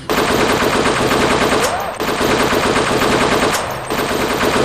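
Fake machine-gun fire: a recorded automatic-gunfire sound effect played loud through a portable speaker. Rapid, continuous shots start abruptly, with short breaks about two seconds in and again near the end.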